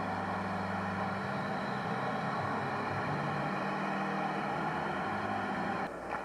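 Arena crowd cheering after a goal, a steady roar with low held notes underneath that change pitch several times. It breaks off suddenly near the end.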